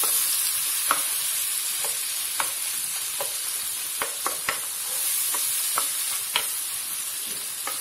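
Minced beef sizzling as it fries in butter and oil in a nonstick pan, stirred with a wooden spatula. A steady hiss runs through it, with scattered sharp ticks.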